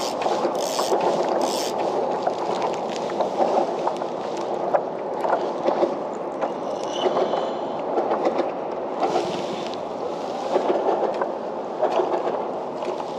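Water lapping and slopping against a kayak hull, with many small knocks and ticks, and a few short hissy splashes in the first two seconds.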